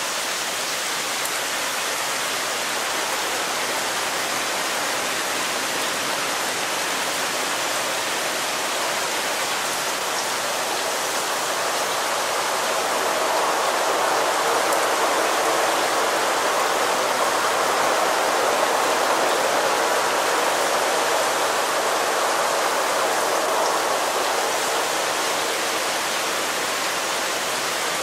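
Rain texture from the Omnisphere 2 patch 'TEX - Heavy Showers', built from a field recording of night rain: a steady, dense hiss of rain. A little before halfway it swells louder in its middle range, holds, and then eases back near the end.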